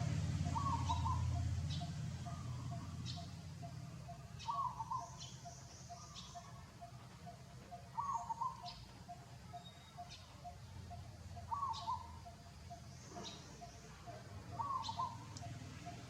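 A bird calling a short phrase about every three and a half seconds, with thin high chirps in between, over a steady low hum.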